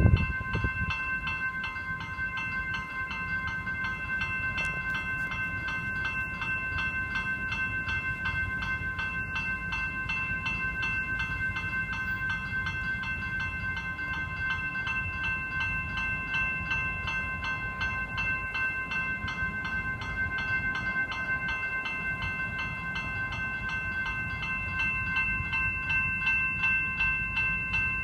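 Level-crossing electronic bells (General Signals E-bells) ringing continuously, a rapid repeating high-pitched ding, the warning that the crossing is active for a train. A low rumble runs underneath.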